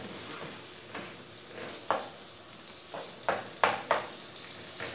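Diced calabresa sausage sizzling as it fries in bacon fat in a nonstick pan. A spatula stirs and scrapes against the pan in sharp strokes, once about two seconds in and three in quick succession past three seconds.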